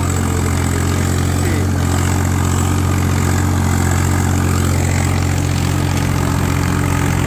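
Tractor diesel engine running steadily under load while pulling a disc harrow through heavy soil, a constant low hum.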